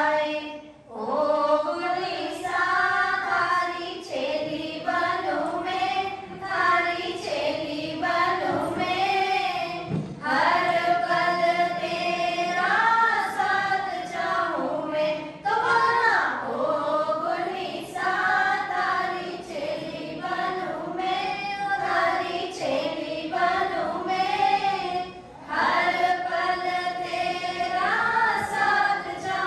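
Women singing a Hindi devotional song together in a group, one voice on a microphone, with long held notes and short pauses between phrases.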